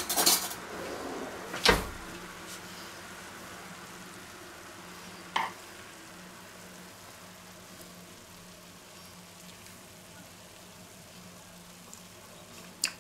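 Metal spoon scooping minced-meat filling out of a frying pan and dropping it onto a tortilla: a few sharp clinks and knocks of the spoon on the pan, the loudest about two seconds in, over a faint steady hiss and low hum.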